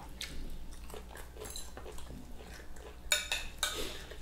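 Spoons and forks clinking and scraping against plates and a glass salad bowl while people eat, with two sharper clinks about three seconds in.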